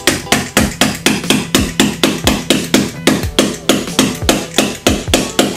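Small hammer tapping a plastic wall anchor into a drilled hole in drywall: quick, even strikes about four a second.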